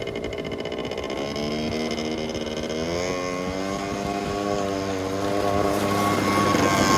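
Bombardier DS50 youth ATV's small two-stroke engine running under throttle, its pitch climbing about three seconds in and then holding. At first gravel sprays from the tyres as it drifts, and the engine gets louder near the end as the quad comes closer.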